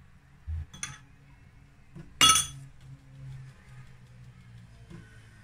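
Kitchenware clinks while flour is sifted over a glass mixing bowl: a dull knock, a sharp click just under a second in, and a louder ringing clink of a metal spoon against the bowls about two seconds in, then quiet handling noise.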